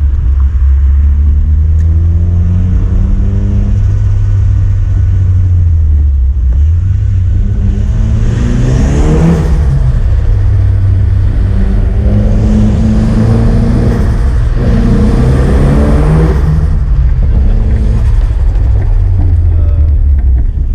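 Turbocharged SR20DET four-cylinder of a Nissan Silvia S15, fitted with a dose pipe and no blow-off valve, accelerating in three pulls with the pitch rising and dropping back at each gear change. A rushing intake noise builds during the harder pulls. Recorded from a mic in the engine bay.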